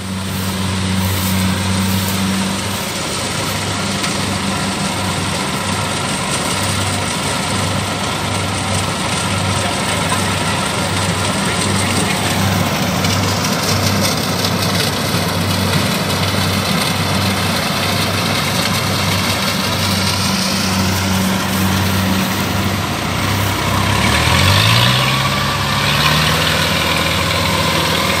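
Diesel engines of rice-harvest machinery, a combine harvester and a sack-laden transporter, running steadily with a pulsing beat. Near the end one engine revs up and rises in pitch.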